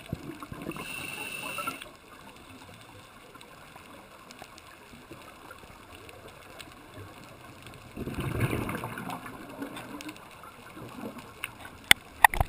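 Scuba regulator breathing heard underwater: a hiss with a thin steady whistle in the first two seconds of inhalation, then a rush of exhaled bubbles about eight seconds in. A few sharp clicks come near the end.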